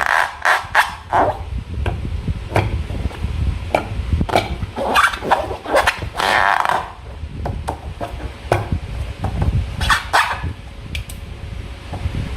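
Slime being squished and stretched by hand: an irregular run of wet squelches and sharp clicks, with thicker clusters near the start, around the middle and again near the end.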